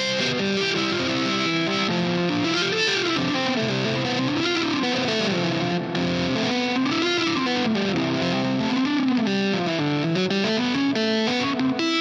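Indie rock music with distorted, effects-laden electric guitars. A pitched line slides up and down in smooth arcs every second or two over a steady band texture.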